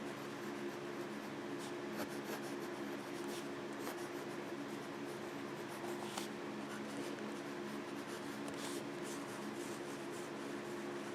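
Bastion Bolt Action ballpoint pen writing on paper: faint, irregular scratchy strokes over a steady low hum.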